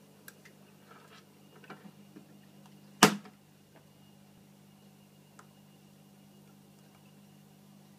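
One sharp plastic clack about three seconds in, as the feeding flap on the aquarium's plastic hood is shut, after a few faint clicks. A faint low hum runs underneath.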